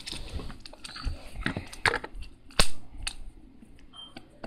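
Infinity cube fidget toy being flipped and folded in the hands: an irregular run of clicks and taps as its hinged blocks knock together, the loudest about two and a half seconds in.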